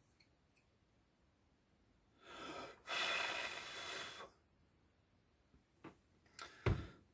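A person breathes in, then breathes or blows out hard for over a second. A few light clicks follow, and a dull knock comes near the end.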